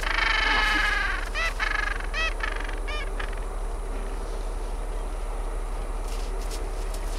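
Gentoo penguin braying: a long harsh call in the first second, then a run of short honking notes that stops about three seconds in, leaving a steady background hiss.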